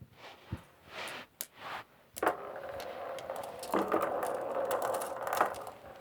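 Glass marbles clicking against each other and the cardboard as they are loaded by hand into a cardboard marble gun: scattered clicks at first, then a denser, continuous rattling from about two seconds in.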